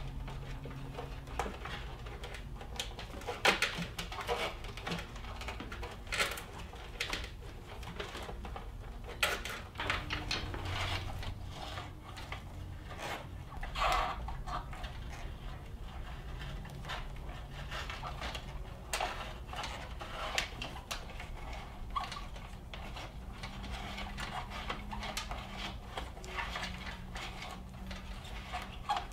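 Irregular clicks, taps and knocks of hands handling a wiring harness and tools, over a low steady hum.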